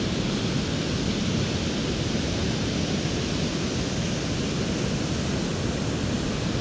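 Steady, even rushing of surf and wind, with no other distinct sound standing out.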